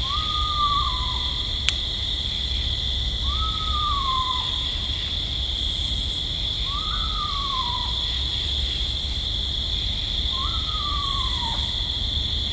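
Eastern screech-owl calling: four falling whinny calls, each about a second long with a brief rise and then a slide down in pitch, coming roughly every three and a half seconds. A steady high insect chorus runs under them.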